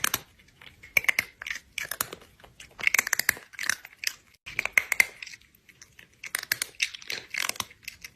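Crunchy chewing and biting: irregular clusters of crisp crunches with short pauses between bites.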